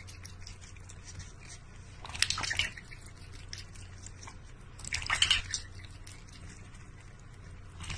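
Water dripping and splashing in a large stainless steel water bowl as a cat laps from it, with two louder splashy bursts about two and five seconds in.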